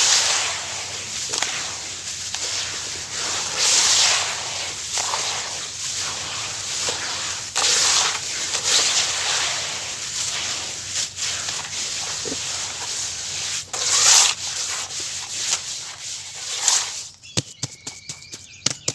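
Wet sand-cement paste being squished and mashed by hand: a gritty, crunchy rubbing with louder squelchy swells every few seconds. About seventeen seconds in it stops, leaving a few faint clicks.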